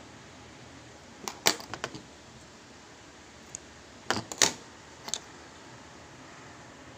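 Small sharp clicks and taps from handling a rebuildable vape atomizer and a pointed metal wicking tool, in two short clusters about a second in and about four seconds in, over a faint steady hiss.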